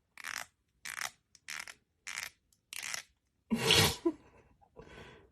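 A comb's teeth scratched in short rasping strokes, about seven of them, roughly one every two-thirds of a second: the sound that makes some cats gag. The stroke about three and a half seconds in is louder and deeper than the rest.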